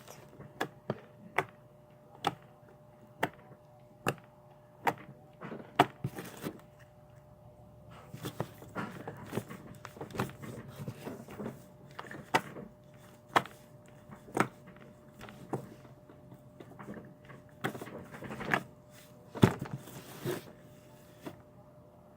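Fingers poking sticky, stretchy slime, making a series of sharp little pops and clicks, about one a second at first, with a denser run of softer noises in the middle.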